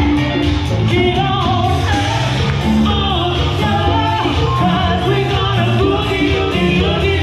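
Band music with a singer carrying the melody over a steady beat.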